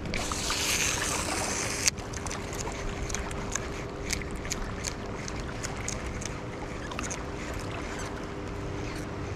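A baitcasting reel cast: the spool whirs for about two seconds and is stopped short with a click. The lure is then reeled in with faint ticks from the reel, over the rush of flowing river water and a steady low hum.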